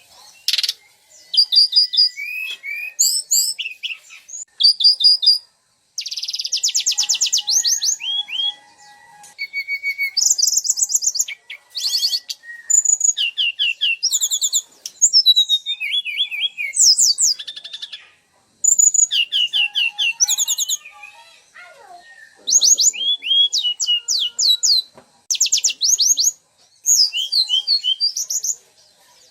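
Songbirds giving harsh, coarse call phrases: rapid chips, fast trills and sharp whistled notes in quick bursts, separated by short pauses.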